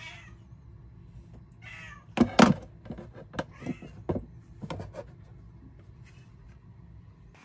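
Plastic parts of a cat water fountain clunking and clicking as the filter is pressed onto the pump post, loudest a little past two seconds in. A cat meows three short times.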